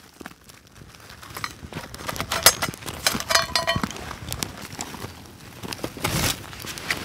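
Dry twigs and tinder crackling and snapping as they are handled and fed onto a small flame, with a brief ringing scrape about three seconds in and a louder rustle near the end.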